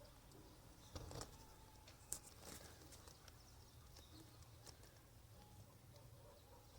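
Near silence, with a few faint short taps, the clearest about two seconds in.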